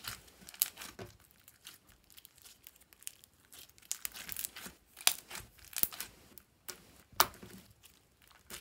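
Hands squeezing, folding and stretching a glossy slime with waffle pieces mixed in, giving an irregular run of crunching, crackling clicks and snaps, a few of them sharper and louder than the rest.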